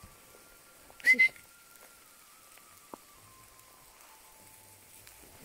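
A short, sharp whistle from a person, in two quick pulses about a second in; otherwise only faint ticks and rustles.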